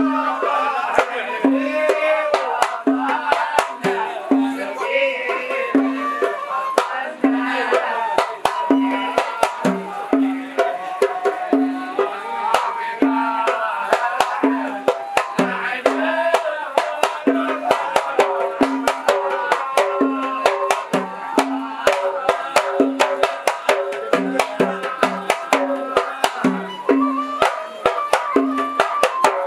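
Hadrami zarbadi performance: men chanting a devotional poem together over a drum that strikes low pitched beats about once a second, with a dense run of sharp clicks.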